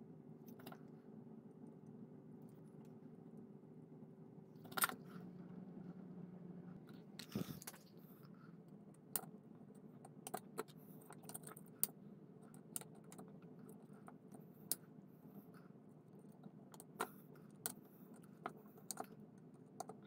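Scattered small clicks and taps of tools and parts being handled at a circuit board during soldering, over a faint steady hum, with one sharper click about five seconds in and a brief rustle soon after.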